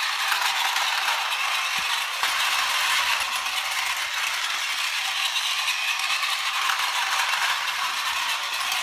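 Battery-powered Plarail toy train (MTR Airport Express model) running on plastic track: a steady motor whir with the wheels and cars rattling and clattering along the track.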